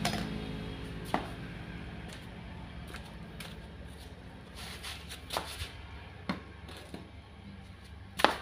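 Scattered sharp clicks and knocks of metal tools and an air-hydraulic foot pump being handled and set down on a concrete floor, about eight in all, the loudest near the end, over a faint steady hum. At the very start a louder noise dies away.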